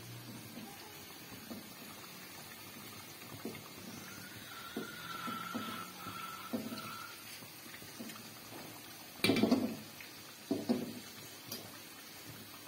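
Hot oil sizzling steadily in a steel wok as rice-flour dough pieces deep-fry, with small clicks of a metal fork turning them. Near the end the fork clatters twice, louder, against the wok.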